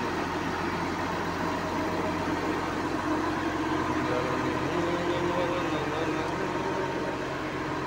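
Diesel engine of a truck-mounted mobile crane running steadily.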